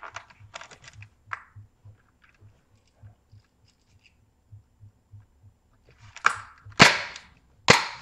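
Three sharp knocks within about a second and a half near the end, the last two loudest, after a few faint clicks.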